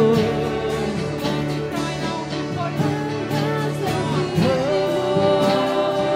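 A live worship band playing a song, with a man singing lead in long held notes over guitar and drums.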